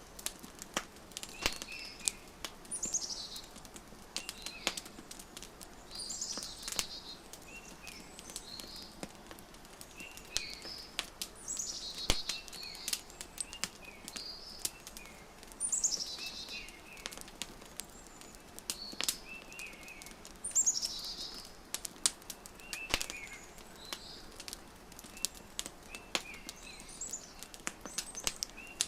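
Wood fire crackling with irregular sharp pops, layered with birdsong: a high call that falls in pitch repeats every few seconds, with short chirps between.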